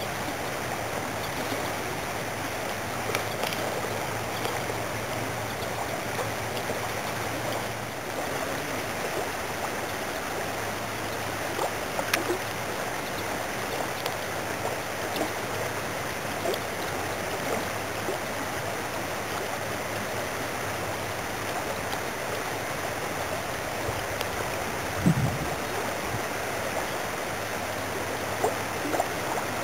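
Steady rush of shallow creek water flowing over a rocky riffle, with a few faint short knocks.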